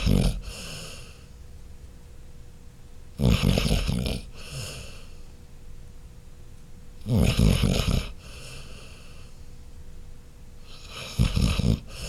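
Labrador Retriever snoring in her sleep: a loud rasping snore about every four seconds, each trailed by a softer breath.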